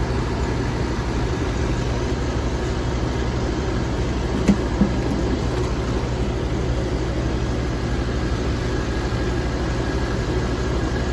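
Vehicle engine idling with a steady low hum, with two short knocks about four and a half seconds in.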